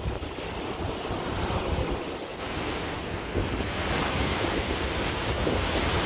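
Small waves breaking and washing over a shore of rounded cobblestones, with strong wind buffeting the microphone in a heavy, gusty rumble.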